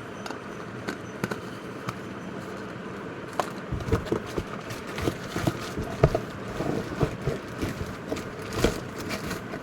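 Irregular clicks and knocks of the hard plastic parts of a mixer grinder's jars, lids and blade assembly being handled and set down. A few faint clicks at first, then a dense run of sharper knocks from about three and a half seconds in.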